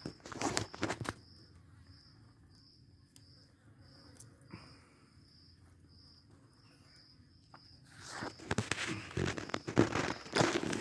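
Tortoises biting and chewing shredded raw butternut and pumpkin from a tray: bursts of crisp crunching in the first second and again through the last three seconds, quiet in between. A faint high chirp repeats about twice a second through the quiet part.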